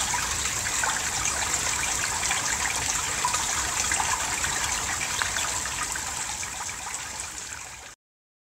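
Rainwater running and trickling steadily in a forest stream after a spring rainstorm. It fades a little and then cuts off suddenly near the end.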